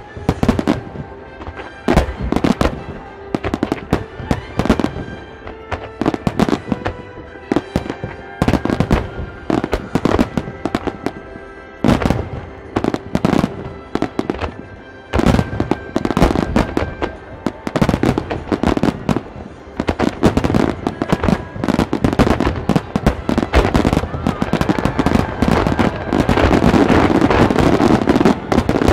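Aerial firework shells bursting in rapid, irregular succession, dozens of sharp booms, with music playing underneath. Near the end the bursts merge into a dense, continuous crackling as the display builds to its finale.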